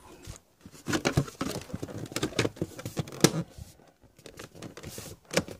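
A plastic fuse-box cover being pressed back into the end of a car dashboard: a quick run of plastic clicks, knocks and scraping, dying down a little after halfway, with one sharp click near the end.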